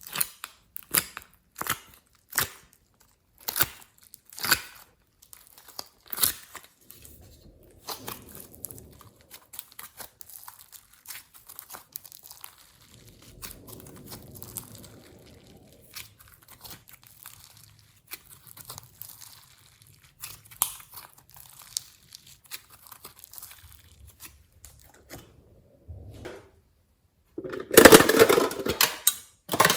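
Slime being worked by hand, giving a string of sharp crackling clicks and pops, then softer rustling. A loud burst of crinkling comes near the end.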